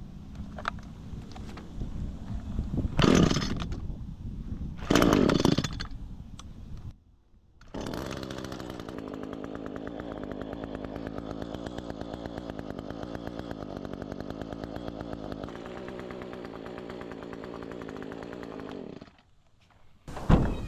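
Echo string trimmer's small two-stroke engine running on its newly replaced primer bulb: revved up twice in the first few seconds, then idling steadily before cutting off, with a sharp knock near the end.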